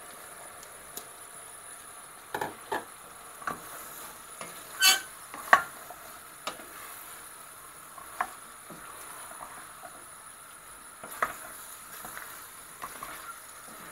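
Sliced courgettes being stirred into frying masala in a stainless steel saucepan: a faint steady sizzle, with irregular knocks and scrapes of the spoon against the pan, the loudest about five seconds in.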